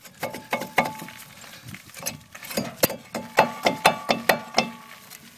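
Steel breaker bar clanking against a rusted brake caliper as the caliper is pried loose from its bracket. A string of sharp metallic knocks with brief ringing, coming faster and louder in the second half.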